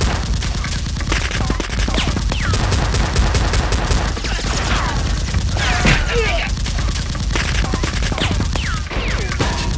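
Sustained rapid gunfire, many shots a second without a break, laid in as a gun sound effect for Nerf blasters, with several short falling whistles among the shots.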